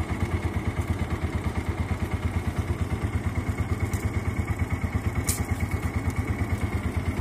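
Small boat's engine running steadily, a low, even thudding of about ten beats a second.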